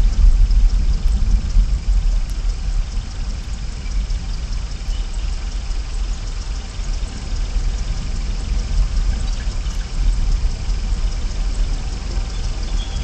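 Steady rushing outdoor background noise picked up by a nest-cam microphone, heavy in low rumble with a fainter hiss above, unchanging throughout. No calls from the bald eagle.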